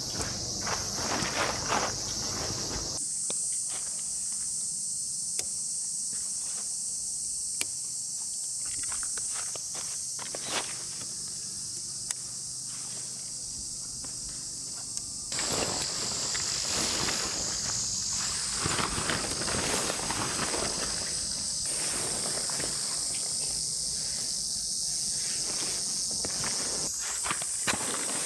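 A steady, high-pitched chorus of summer insects, shifting in pitch a few times, with intermittent rustling and crunching footsteps, busiest about halfway through.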